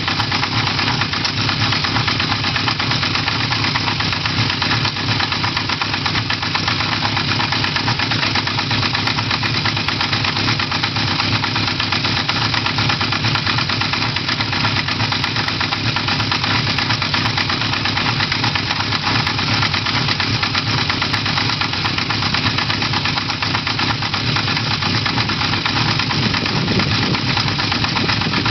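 Honda CB1100F air-cooled inline-four motorcycle engine running steadily, with an even, rapid mechanical clatter throughout; it is recorded as an abnormal noise coming from the engine.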